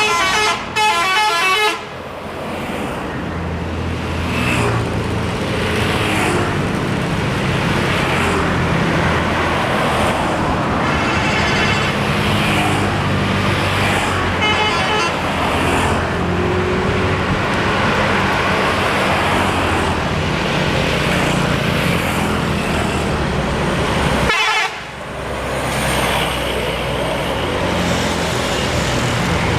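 Multi-tone "telolet" bus horns playing quick tunes of rapidly alternating notes, with the longest burst at the start and shorter ones about halfway through, over the steady running of bus engines.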